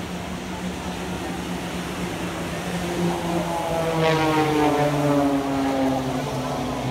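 Piston engines of a formation of single-engine propeller aerobatic planes droning overhead. The drone swells about halfway through, loudest around four to five seconds in, and slides down in pitch as the planes pass and climb away.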